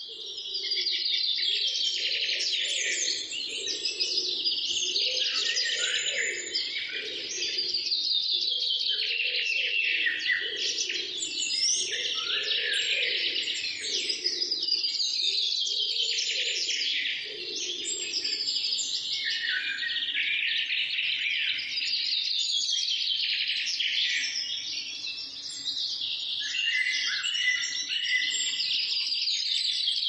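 Many small songbirds singing and chirping at once in a dense, continuous chorus of overlapping high trills and calls. A lower sound runs beneath it through roughly the first half.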